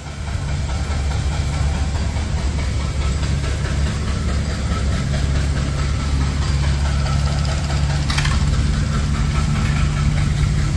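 An engine running steadily at idle, with a brief hiss about eight seconds in.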